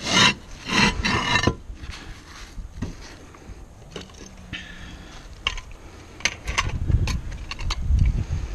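Roof tile scraping against the neighbouring tiles as it is worked loose and lifted, three loud rasping scrapes in the first second and a half. Lighter sharp clicks and knocks of tiles being handled follow near the end.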